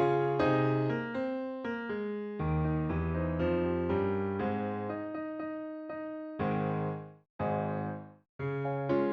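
Background music: electric piano chords and melody, with two brief breaks near the end.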